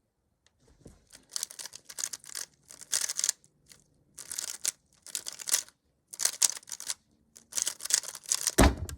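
Rubik's cube turned at speed during a timed solve: fast plastic clicking and clacking in runs of half a second to a second, with short pauses between them. A single loud thud comes near the end.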